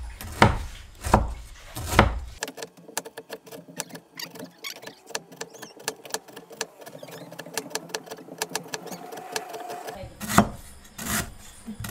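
Cleaver on a round wooden chopping block, cutting lemongrass. A few heavy thuds come first, then a quick run of light slicing clicks, then heavy chopping thuds again about ten seconds in.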